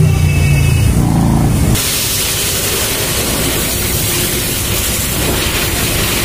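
A low mechanical hum, then, just under two seconds in, the sudden start of a pressure washer's water jet. The jet hisses loud and steady as it sprays the motorcycle's rear wheel and chain area.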